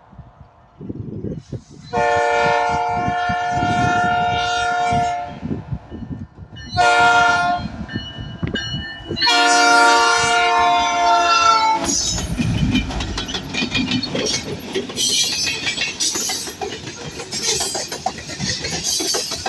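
Freight locomotive's multi-tone air horn sounding the grade-crossing signal: the end of a long blast, a short blast, then a final long blast. Then the train passes close by, the locomotive rumbling and the wheels clattering over the rail joints.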